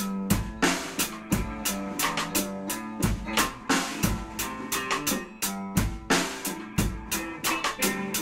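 Improvised psychedelic rock instrumental: a drum kit with bass drum and snare strikes over a held bass line and other pitched instruments.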